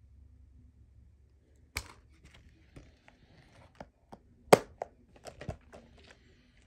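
Plastic DVD keep case being closed and handled: a scatter of sharp clicks and taps, the loudest about four and a half seconds in.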